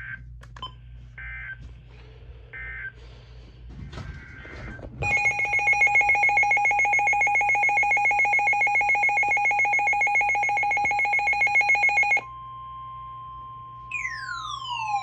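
Emergency Alert System broadcast tones. A few short electronic data chirps come first, then the EAS attention signal: a loud, steady two-tone alarm with a fast flutter that lasts about seven seconds and cuts off abruptly. Near the end a lower single tone comes in and a falling siren-like sweep begins.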